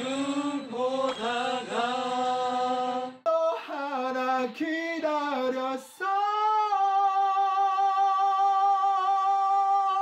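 Unaccompanied amateur singing that cuts abruptly between singers: a voice sings a phrase with vibrato, then another short phrase, and from about six seconds in a man holds one long high note with vibrato.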